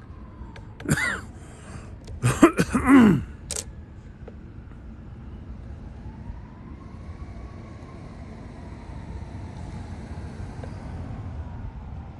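Short vocal sounds from a person close to the microphone, once about a second in and again two to three seconds in, over a steady hum of distant traffic.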